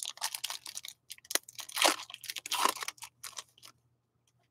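Foil wrapper of a hockey card pack being torn open and crinkled in the hands: a run of short crackling rustles that stops a little past three and a half seconds in.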